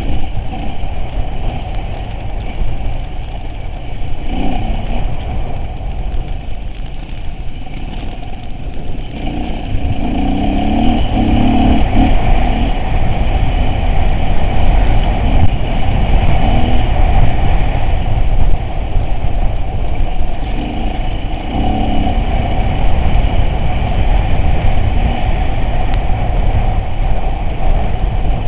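Off-road vehicle's engine running with a rough rumble, growing louder about ten seconds in, with scattered sharp knocks and rattles over it.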